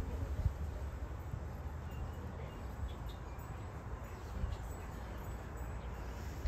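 Outdoor ambience: a steady low rumble, typical of wind on the microphone, with a few faint bird chirps.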